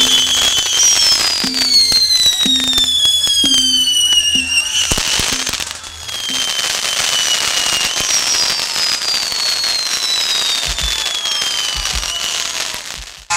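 Fireworks going off: a dense crackle of small bangs under several long whistles that each fall slowly in pitch.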